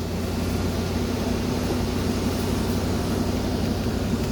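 Mercedes-Benz S420's 4.2-litre V8 running at a steady fast idle of about 1500 rpm, kind of high for this car, which should idle at about 500–600 rpm.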